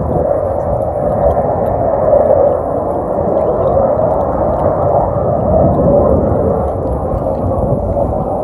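Distant roar of a Northrop T-38 Talon's twin turbojet engines as the jet flies off high overhead, a steady, loud noise that swells and eases slowly.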